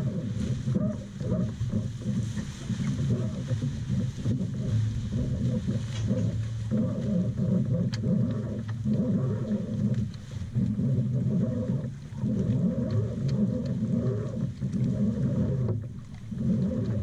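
Wind buffeting the microphone on a sailing yacht under way: a low rumble that swells and drops away briefly a few times.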